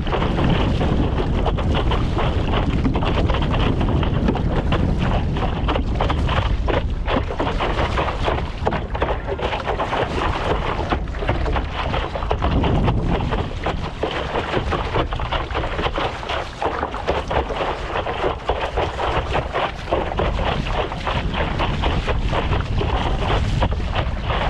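Wind buffeting the microphone of a camera mounted on a stand-up paddleboard, a loud steady rumble, mixed with water splashing from the paddle strokes and against the board.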